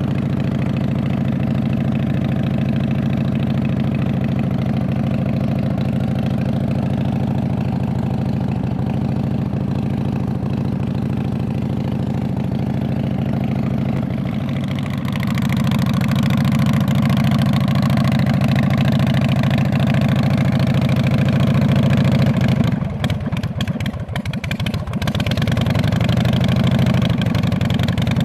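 Custom Harley-Davidson motorcycle's V-twin engine running, loud and steady. It grows louder about halfway through, then near the end briefly drops and breaks up before picking up again.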